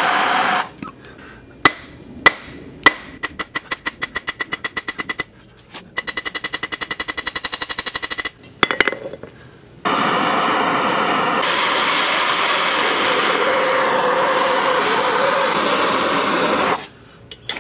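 A hand-held gas torch hisses and cuts off, then a hammer strikes a hot thin steel rod on an anvil: three single blows, then two fast runs of light ringing blows, then a few more. The gas torch then burns again with a steady hiss for about seven seconds.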